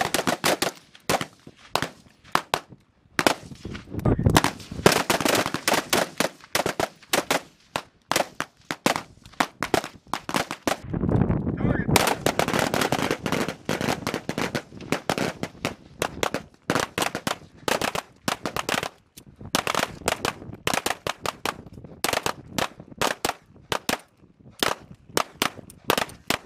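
Small-arms gunfire from rifles and pistols: many sharp shots in quick, overlapping strings from several shooters. The shots come thickest a few seconds in and again around the middle.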